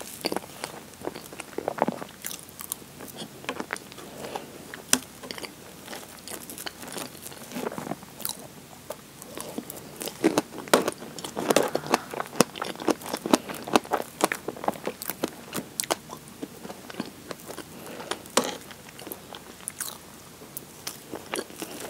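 Close-miked mouth sounds of someone eating strawberry shortcake (soft sponge cake and whipped cream): chewing with many quick wet clicks and smacks, busiest in the middle.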